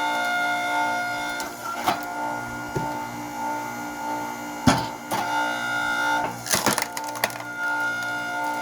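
Hydraulic log splitter working through larch firewood: a steady machine whine from the hydraulic drive, broken by sharp wood cracks as the logs split, about three times, the loudest a little before halfway.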